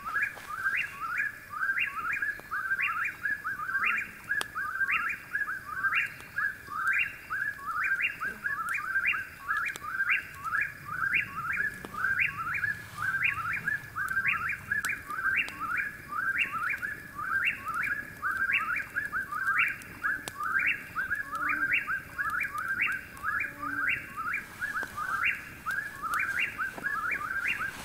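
A bird repeating the same short call without a break, roughly one call every three quarters of a second, each a quick rising note followed by a falling trill.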